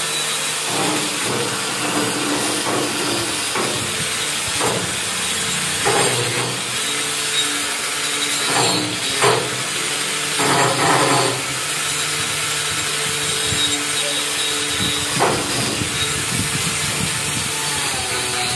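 Steady hissing, grinding noise of a power tool cleaning rust off the metal of a tricycle sidecar, with several short louder scraping surges.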